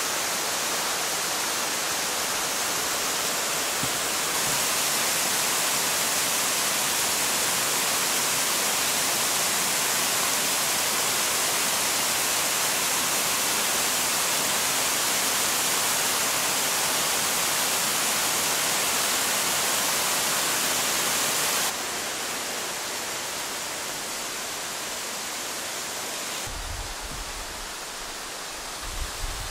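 Waterfall pouring into a rock pool: a steady rush of falling water. It gets louder about four seconds in and softer about twenty-two seconds in, with some low rumbling near the end.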